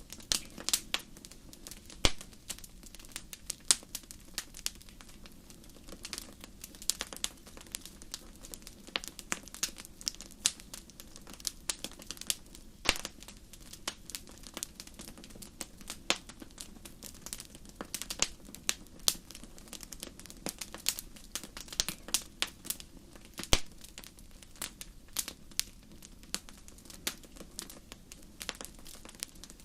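Wood fire crackling in a fireplace: irregular sharp snaps and pops, several a second with a few louder ones, over a steady low rumble.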